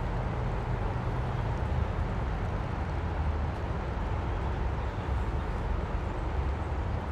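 Steady outdoor background noise, mostly a low, even rumble.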